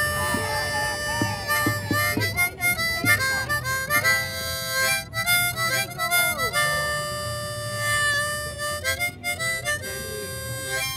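Harmonica playing held chords that change every second or two.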